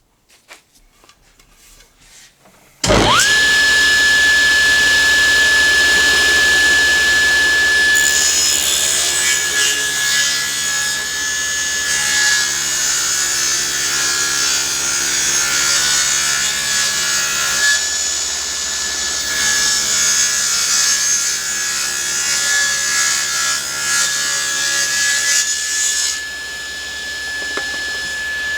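Table saw switched on about three seconds in: the motor spins up to a steady high whine. From about eight seconds in, the blade rips a board on edge for the first pass of a resaw, adding a rasping cutting noise for most of the time. Near the end the cut finishes and the blade spins freely.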